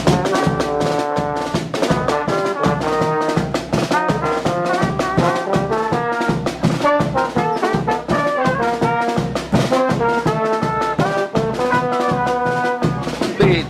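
Live brass-and-percussion carnival band playing an up-tempo tune: trumpets and trombones carry the melody over a steady, quick drum beat.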